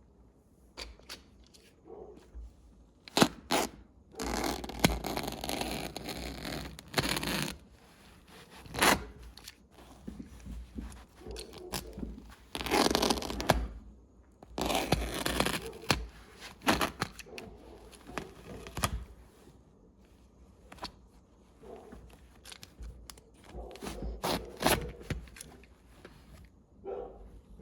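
Hand work on an old wooden bench: irregular bursts of tearing and scraping, each lasting a second or three, between sharp clicks and knocks.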